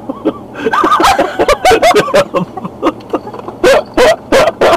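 People laughing hard: squealing laughs about a second in, then a quick run of short bursts of laughter near the end.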